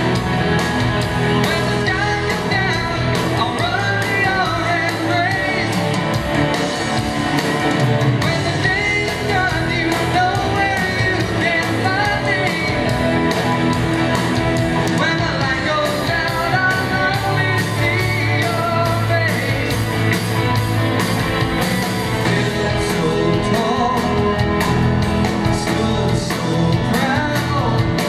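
Live rock band playing: electric guitars, bass, drums and keyboard, with a sung lead vocal over them, in a large hall.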